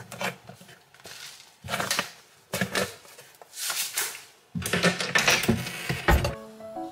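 Close rustling and clattering of objects being handled, in several separate bursts, ending in a heavy thump about six seconds in. Soft background music starts just after.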